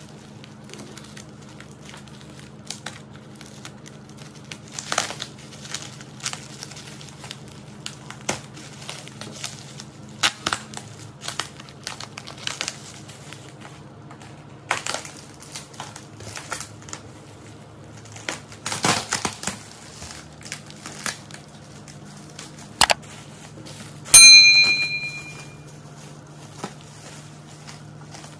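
Bubble wrap being pulled off and handled: irregular crinkling and crackling. Near the end, one loud ringing clink that fades over about a second.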